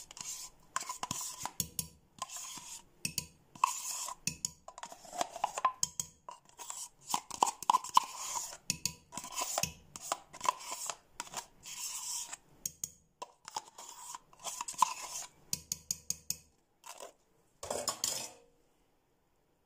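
A spoon repeatedly scraping and knocking against a glass pitcher in quick irregular strokes, many of them clinking with a short ring. It stops abruptly shortly before the end.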